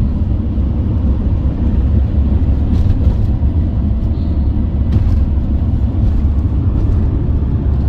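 Ford Transit van driving at speed, heard from inside the cabin: a steady low rumble of engine and road noise.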